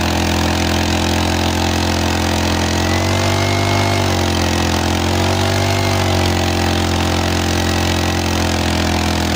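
An engine running steadily close by, its pitch dipping slightly twice in the middle.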